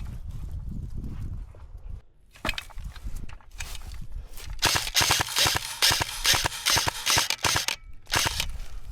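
Airsoft guns firing rapid strings of sharp shots through the second half, after a low rumble and a few scattered clicks.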